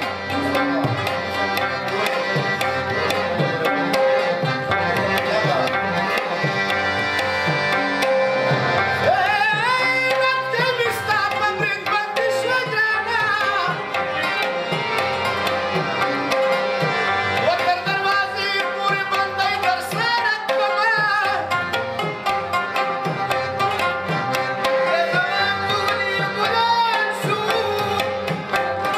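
Pashto tapay folk music: tabla keeps a steady beat under a harmonium and rabab. A man's singing voice comes in twice, once about a third of the way in and again around two-thirds through.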